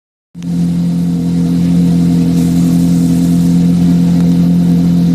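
Ferrari Challenge race car's V8 engine idling steadily, a loud even note with no revving.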